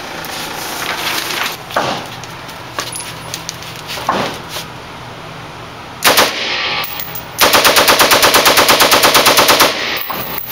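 AK-47 rifle firing: one shot about six seconds in, then, after a second's pause, a fully automatic burst of about twenty rounds lasting just over two seconds, near ten shots a second.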